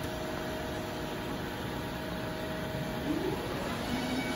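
Haas TL-4 CNC lathe powered up and humming steadily, its spindle starting about three quarters of the way in: a rising whine as the chuck spins up, levelling off into a steady hum.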